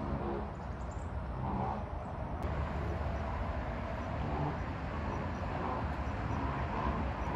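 Steady low rumble of distant road traffic, with a few faint, indistinct sounds above it.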